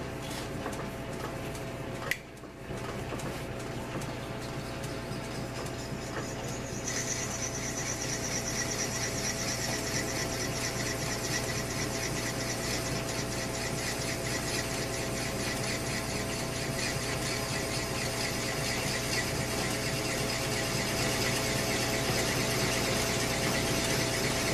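South Bend lathe running with a steady hum and gear whine while a drill bit bores out a motorcycle handlebar tube. About seven seconds in, a high-pitched squeal from the bit cutting starts and continues.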